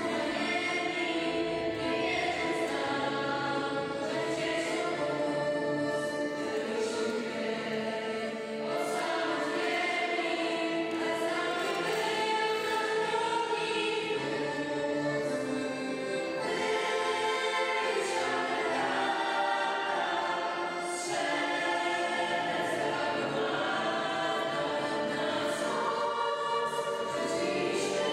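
A choir of young voices singing a song together, accompanied by an accordion.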